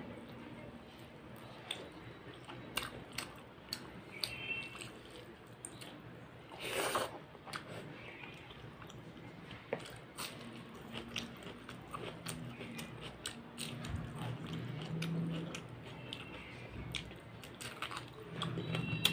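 Close-miked eating sounds: a person chewing mouthfuls of mutton curry and rice, with many short wet mouth clicks and occasional crunches, and one longer louder crunch about seven seconds in.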